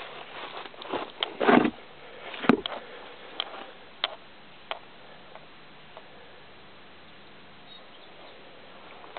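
Footsteps on dry leaf litter and loose rock: a scatter of scuffs and taps, the loudest about one and a half and two and a half seconds in. They stop after about five seconds, leaving a faint steady hiss.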